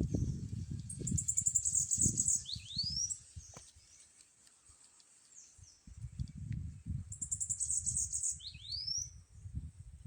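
Bananaquit (sibite) singing twice, about a second in and again about seven seconds in: each phrase a rapid, high buzzy trill ending in quick rising squeaky notes. A faint steady high hiss lies underneath, and an uneven low rumble comes and goes.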